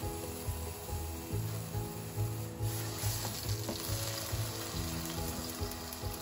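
A beef round roast searing in hot oil in a non-stick frying pan, a steady sizzle that turns sharper about three seconds in as the meat is moved with chopsticks.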